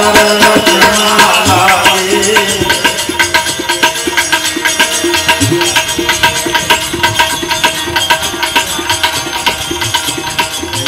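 Devotional bhajan music: a sung phrase for the first two or three seconds, then an instrumental stretch of fast, steady rattling hand percussion over held notes.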